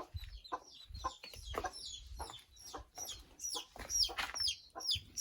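Baby chicks peeping: a rapid run of short, high peeps that fall in pitch, several a second.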